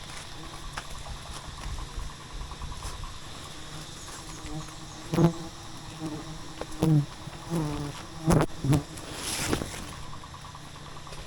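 Wild honeybees buzzing steadily around the hive. Several times in the middle, single bees buzz loudly past the microphone in short passes. A brief rustling hiss comes near the end.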